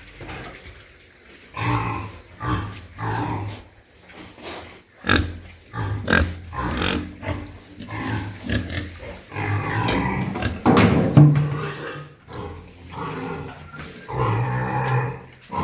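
A group of pigs grunting and oinking in short, irregular calls, with one louder call about eleven seconds in.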